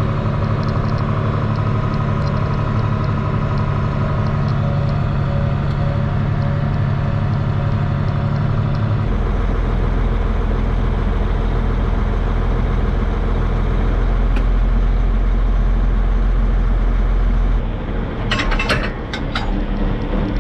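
Tractor engine running steadily, heard from inside the cab. About halfway through its note changes abruptly to a deeper hum. Near the end there are a few sharp knocks.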